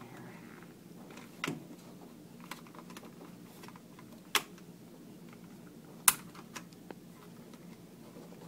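Plastic snap clips on the housing of an Allen-Bradley PanelView 600 Plus clicking as they are pushed and pried free by hand: a few sharp, separate clicks, the loudest about four and six seconds in.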